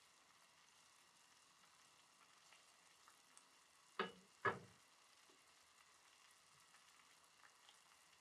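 Near silence in a kitchen: a faint steady hiss, broken a little past the middle by two short knocks about half a second apart.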